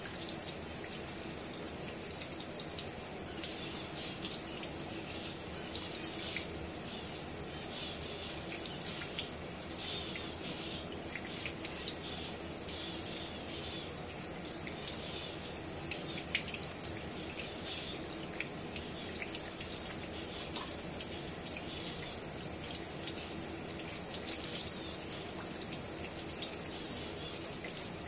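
A kitchen faucet running a thin stream onto cupped hands and a wet lovebird, with steady splashing and dripping into the sink.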